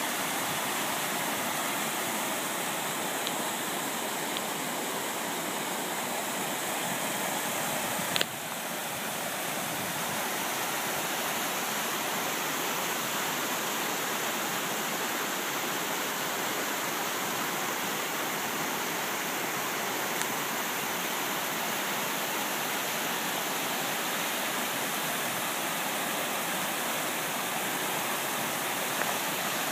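Muddy flash-flood runoff rushing down a desert wash: a steady rushing of water. A brief click about eight seconds in.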